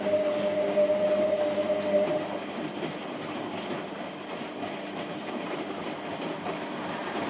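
Washing machine running: a steady motor whine that fades out about two seconds in, leaving a steady mechanical noise from the machine.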